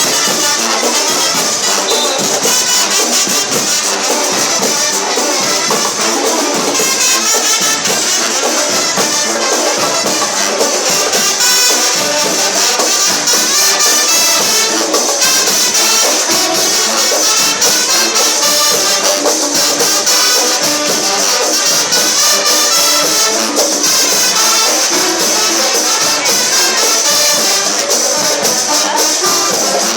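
Loud music with a steady beat, playing throughout.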